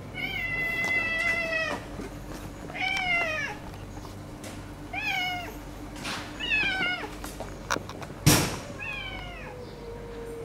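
A cat meowing five times: a long, held first call, then four shorter meows that fall in pitch at the end. A single sharp knock sounds about two-thirds of the way through.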